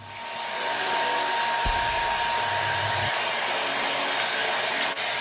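Handheld hair dryer blowing steadily, building up over the first second and then holding even, with a faint thin whine in the first few seconds.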